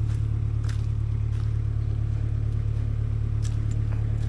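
Excavator's diesel engine running steadily at an even pitch, with a few faint clicks.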